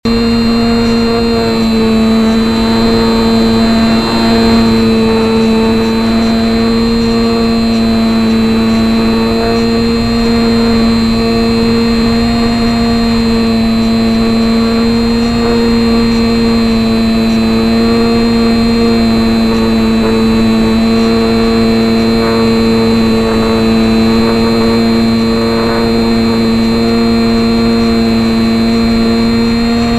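HobbyZone Champ RC plane's small electric motor and propeller running steadily in flight, a loud drone at a nearly constant pitch that wavers slightly, heard close up from a camera mounted on the airframe.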